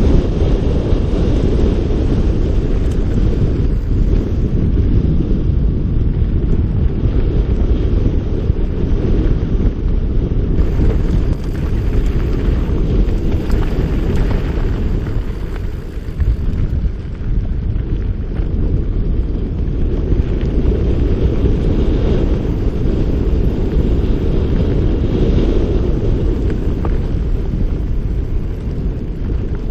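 Wind buffeting the camera's microphone over the rumble of a mountain bike's tyres rolling on a dirt singletrack, a steady loud low rushing noise.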